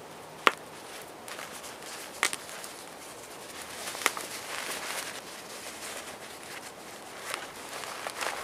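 A small cloth drawstring pouch being handled and opened: the fabric rustles, with a few sharp clicks, one about half a second in, one around two seconds and one around four seconds.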